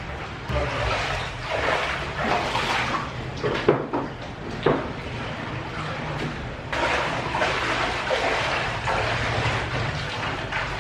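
Floodwater sloshing and splashing as feet wade through shin-deep water and hands work in a plastic basin of water, with a few sharp knocks of plastic basins and dishes a little before halfway.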